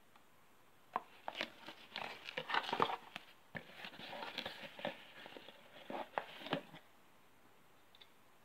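A small corrugated cardboard box handled and pulled open by hand: its flaps rustle and scrape with a run of sharp clicks and tearing noises, stopping about two-thirds of the way through.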